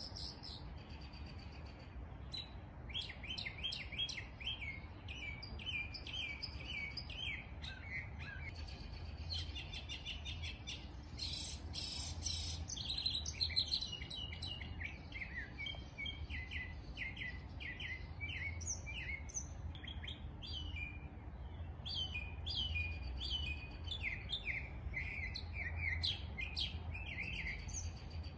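Songbirds chirping and singing, a steady stream of short, quick high calls that overlap at times, over a faint steady low rumble.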